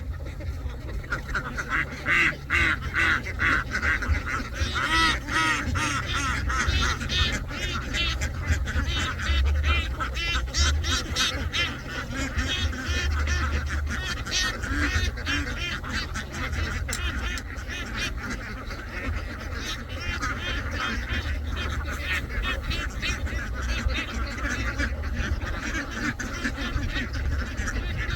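A large flock of domestic ducks quacking in a continuous, overlapping chorus of many rapid calls, with a steady low rumble underneath.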